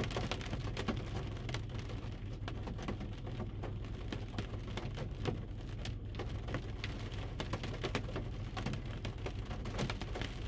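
Rain pattering on a car, heard from inside the cabin: a dense, irregular scatter of sharp drop taps over a low, steady hum.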